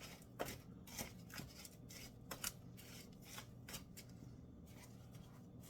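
Faint rustling with light, irregular clicks and taps, as food and its packaging are handled while filling a baking pan.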